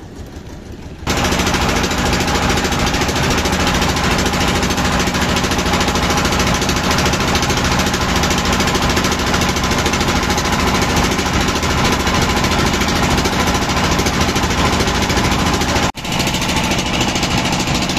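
A motorboat's engine running loud and steady, cutting in suddenly about a second in and dropping out for an instant near the end.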